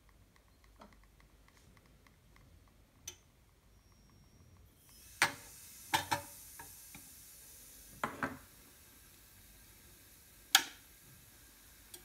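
Sharp metallic clinks and knocks as a cup and hands handle the brass Zacconi Riviera lever espresso machine at its group head and perforated drip tray, about half a dozen in all, the loudest near the end. A faint steady hiss comes in about five seconds in.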